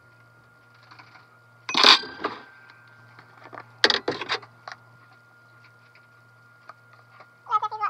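A metal spoon clinking and clattering against a ceramic bowl and the tabletop, with a loud clatter about two seconds in and a quick run of clicks about four seconds in, over a faint steady hum. Near the end a cat meows.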